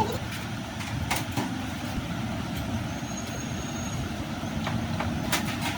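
Steady low rumble of road traffic, with a few sharp metallic clicks and taps of hand tools on the motorcycle.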